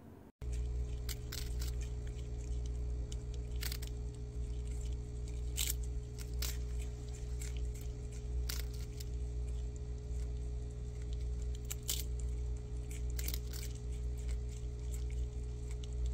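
Prairie dogs gnawing crisp wafer biscuits: irregular sharp crunches and nibbles, over a steady low hum.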